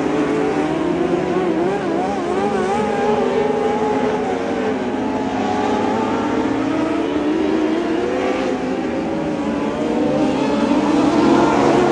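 A pack of dwarf race cars running on a dirt oval, their motorcycle engines revving, several at once rising and falling in pitch as they accelerate off the turns and lift again. The sound grows louder near the end as the cars come closer.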